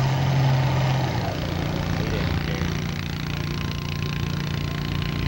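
Farm tractor engine running hard as it pulls the weight sled in a stock tractor pull. Its loud steady note drops away about a second in, and the engine runs on lower and rougher.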